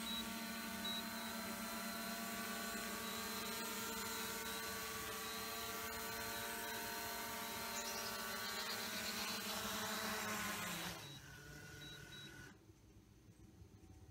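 DJI Mavic Air 2 quadcopter's propellers whining steadily as it descends on Return to Home, a little louder as it nears the ground. About eleven seconds in the motors spin down with a falling pitch and stop on touchdown, and a short beep follows.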